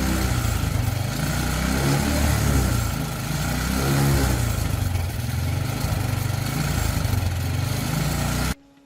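Motorcycle engine running, its speed rising and falling a couple of times. The sound starts and stops abruptly.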